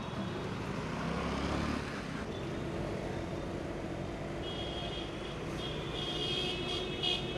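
Street traffic running steadily, with a vehicle passing about a second in. From about halfway, a thin high-pitched tone comes and goes.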